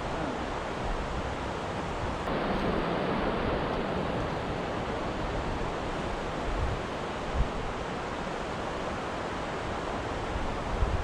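Steady rush of water through river shoals, with a few low thumps about halfway and near the end.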